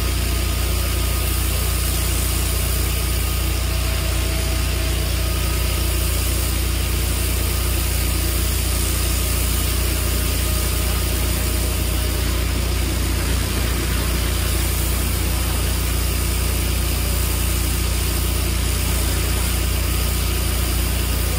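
Engine-driven high-pressure washer with a 22 HP Japanese engine and a 350 bar pump, running steadily under load, with the hiss of the high-pressure water jet over the engine's even hum.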